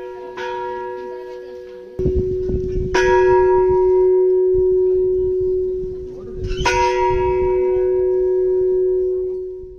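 A bell struck three times, each strike ringing on long and steady until the next, fading away at the end. A low rumbling noise runs underneath from about two seconds in.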